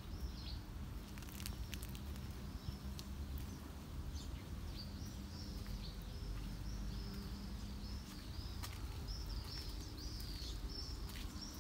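A small bird chirping in a run of short, high notes that grow more frequent in the second half, over a steady low outdoor rumble.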